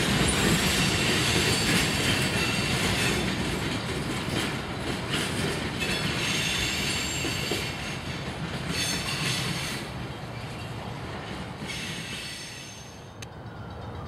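Freight cars (gondolas, boxcars and tank cars) rolling past, their wheels clattering on the rails and squealing now and then in high-pitched stretches. The sound slowly gets quieter, then drops sharply near the end.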